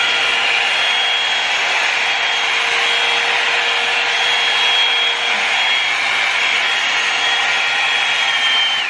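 Revlon One-Step hot-air brush dryer running steadily, its motor fan blowing with a steady high whine over the rush of air. Near the end the whine falls in pitch and fades as the motor spins down.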